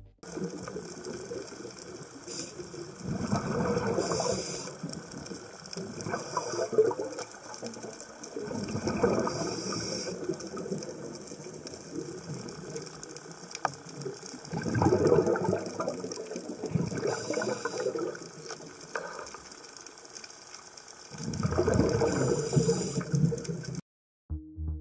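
Underwater ambience: a constant fine crackling, with swells of rushing, bubbling water noise every few seconds.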